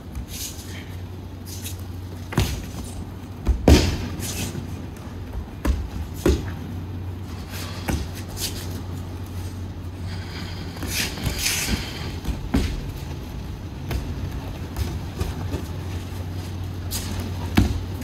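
Irregular thuds of aikido practitioners taking falls and stepping on tatami mats, the loudest about four seconds in, over a steady low hum.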